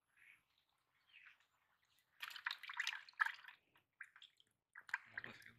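Water splashing and dripping in a plastic bucket as a hand works in it, in a loud spell from about two to three and a half seconds in and a few shorter splashes near the end.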